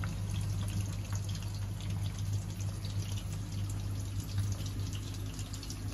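Large stainless steel pot of water with rice noodles at a rolling boil, bubbling and crackling steadily over a constant low hum.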